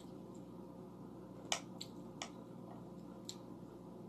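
Metal chopsticks clicking and tapping against a metal plate while picking up pomegranate arils: about five faint, sharp, irregular clicks.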